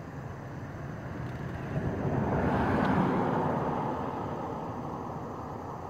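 A vehicle passing by: a rushing noise that builds to a peak about three seconds in and then fades away.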